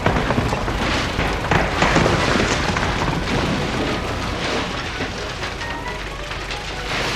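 Background music under a loud, rough rushing noise effect full of crackles, which slowly eases off.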